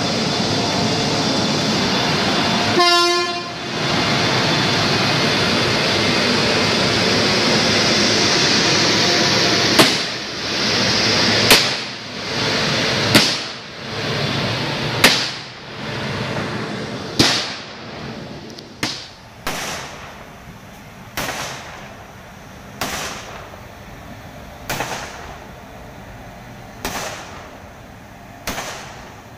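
A WAP-7 electric locomotive's horn sounds briefly about three seconds in, over a steady wash of crowd applause. From about ten seconds, firecrackers go off as sharp single bangs roughly every couple of seconds, each ringing out, growing fainter toward the end.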